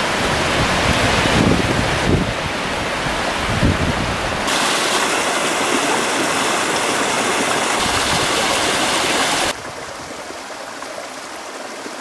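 A small mountain creek splashing over rocks in a little cascade, a steady rush of water. The sound changes abruptly several times and drops to a softer rush about three-quarters of the way through.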